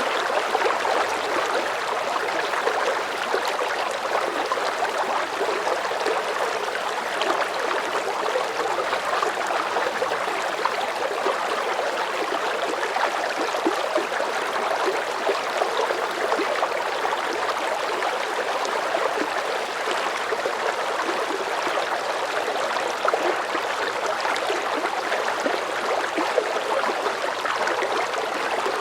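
River current of medium strength flowing steadily, a continuous rushing and burbling of moving water.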